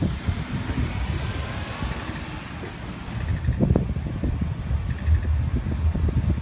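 Diesel railcar pulling away from the station and approaching, its engine note rising faintly in the first few seconds, under strong wind buffeting on the phone's microphone.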